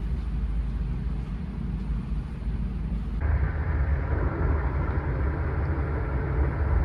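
Steady low rumble of a moving passenger train, heard from inside the carriage. About three seconds in it cuts abruptly to a louder, fuller rumble of the same kind.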